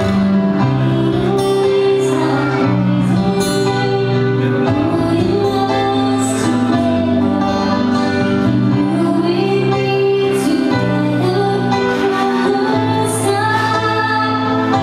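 A woman singing a slow, tender ballad with held notes, accompanied by a strummed acoustic guitar.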